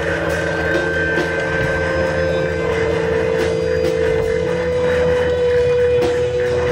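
Live experimental music: a held droning tone that shifts slightly in pitch, over a steady low rumble with scattered small clicks and knocks.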